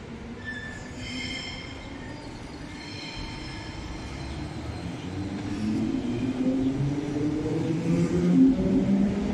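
Berlin S-Bahn class 485 electric multiple unit pulling away from a platform, its traction motors whining and rising steadily in pitch as it speeds up and gets louder. Brief high tones sound about one and three seconds in.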